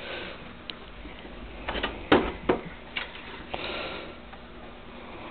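A boxed toy is picked up and handled. A cluster of sharp knocks and clicks from the packaging comes about two seconds in, then a short rustle.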